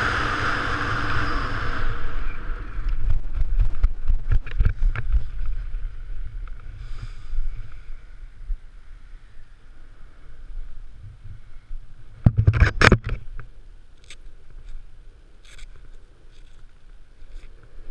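Wind rushing over a helmet camera's microphone under a parachute canopy, cutting off about two seconds in as the skydiver touches down. Then come irregular knocks and rustling of nylon parachute fabric and lines being handled and gathered, with a louder burst of rustling about twelve seconds in.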